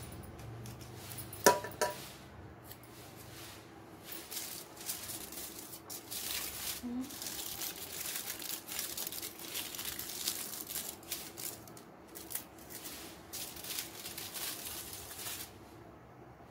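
Aluminium foil crinkling in a dense crackle as it is folded and pressed over a cardboard circle, starting about four seconds in and stopping shortly before the end. A single sharp knock comes about a second and a half in.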